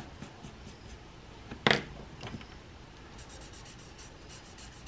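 Pencil scratching lightly on drawing paper, with one sharp knock just under two seconds in. From about three seconds in, a paper blending stump rubs quickly back and forth over the drawing, about five strokes a second, smudging the graphite shading.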